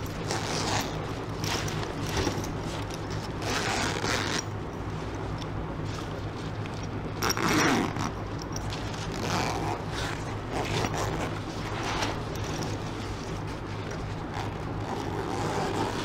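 Backpack zipper being drawn open and shut in repeated short rasping strokes, the loudest about seven and a half seconds in, as a clip-on Fix A Zipper replacement slider is tested on the separating zipper; the slider sits too loosely on the teeth. A steady low hum runs underneath.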